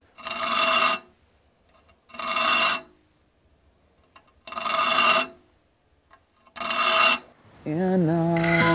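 A saw file stroked four times across the steel teeth of a hand saw held in a saw vise, sharpening the teeth. The strokes come about every two seconds, each a rasp of under a second with a ringing tone in it. Acoustic guitar music comes in near the end.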